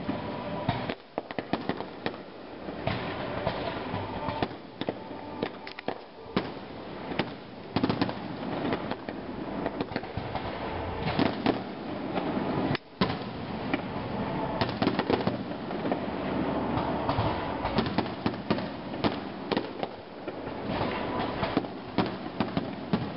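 Aerial fireworks display: shells bursting with many sharp bangs and cracks in quick succession over a continuous crackling haze.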